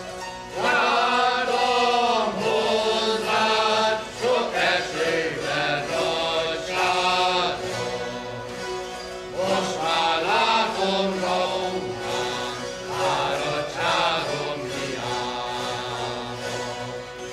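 A mixed group of men and women singing a Hungarian folk song together, in phrases of a second or two with short breaks between them.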